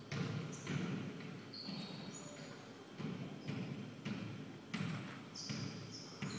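Basketball being dribbled on a hardwood gym floor, a bounce every half second or so. Sneakers squeak on the floor briefly about two seconds in and again near the end.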